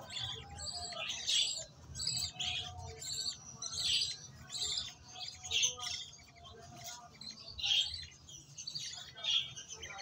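Budgerigar chicks giving high begging chirps in short bursts, about once or twice a second, while being hand-fed formula from a syringe.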